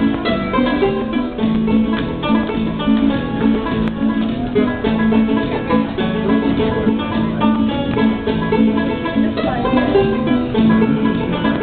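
Banjo playing a tune as a quick, steady stream of plucked notes.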